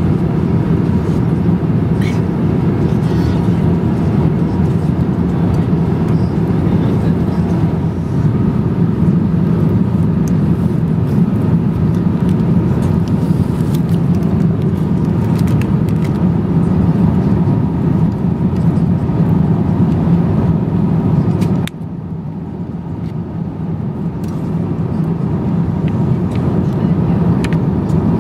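Steady low cabin noise of an Airbus A350-900 in cruise, with a faint steady tone on top and a few light clicks. The level drops suddenly about three-quarters of the way through, then slowly builds back.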